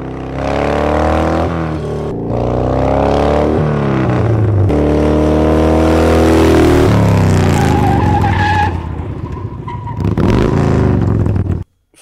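Recordings of a 1986 Harley-Davidson Heritage motorcycle's V-twin engine approaching and passing, several clips played back to back. The engine note climbs through the revs and drops away again and again, and the playback cuts off suddenly near the end.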